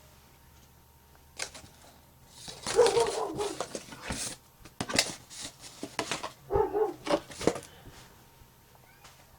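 A dog barking in two short bouts, about three seconds in and again about seven seconds in, with sharp clicks and knocks in between.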